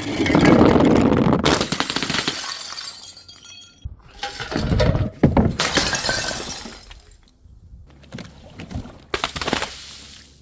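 Glass bottles smashing: three loud crashes of shattering glass, each followed by tinkling shards settling.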